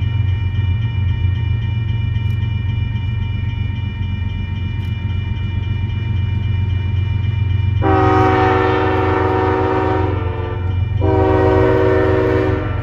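Union Pacific diesel locomotive approaching with a steady low engine rumble and a faint steady high whine, then sounding its air horn in two long blasts, about eight and eleven seconds in, for the road crossing.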